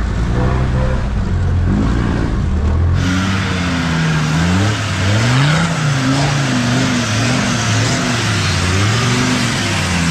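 Off-road vehicle engine running at steady revs, then revving up and down repeatedly from about three seconds in, with a rushing noise over it.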